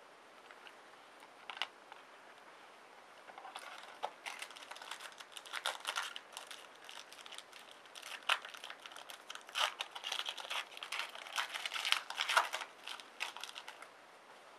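Plastic foil wrapper of a trading-card pack crinkling and crackling as it is torn open and crumpled, a dense run of rustles and sharp clicks lasting about ten seconds, starting a few seconds in.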